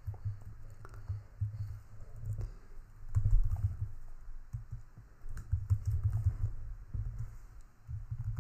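Typing on a computer keyboard in short irregular bursts of keystrokes, heard mostly as deep thuds with faint clicks, loudest a little past three seconds in.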